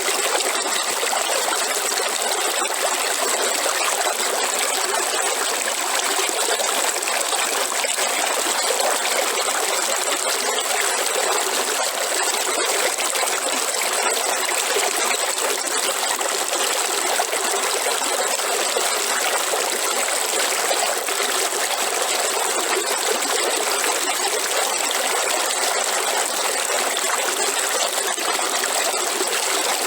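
River water flowing and trickling over rocks, a steady rushing without pause.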